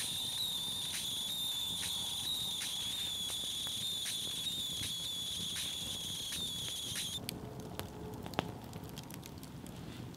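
Kazan Afghan pressure cooker letting off steam through its valve as it depressurizes, a steady high wavering whistle that cuts off abruptly about seven seconds in. Campfire crackling with sharp pops follows.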